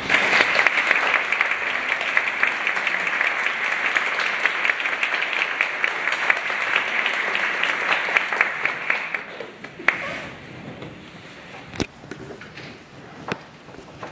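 Concert audience applauding a performer's entrance. The applause dies away about nine to ten seconds in, leaving a hushed hall broken by a few single knocks.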